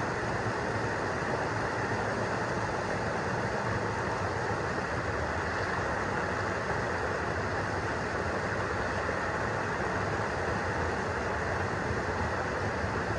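Steady rush of water cascading down a sloping stone ledge and churning around a pair of waders standing in the flow.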